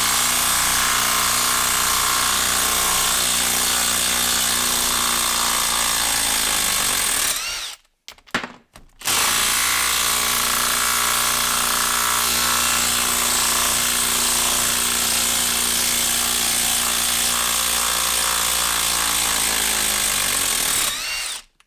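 Kobalt 24-volt brushless quarter-inch hex impact driver running in reverse under heavy load, hammering to back a 4.5-inch screw out of a wooden stump. It stops for about a second and a half about seven seconds in, then runs again until it stops near the end as the screw comes free.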